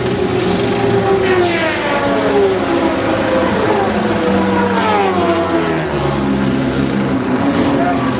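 A pack of racing go-karts running together, several small engines heard at once, their pitches gliding down in long slides as the karts go past and away.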